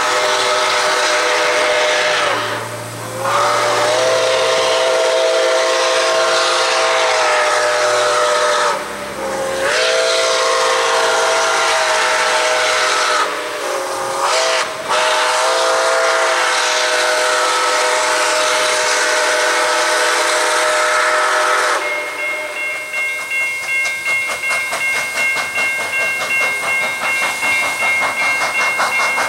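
Nickel Plate Road 765 Berkshire steam locomotive blowing its whistle, a chord of several notes, in long blasts and then long, long, short, long: the grade-crossing signal. After the whistle stops, the exhaust chuffs in a quick rhythm that grows louder as the engine comes closer, with a steady high ringing tone alongside.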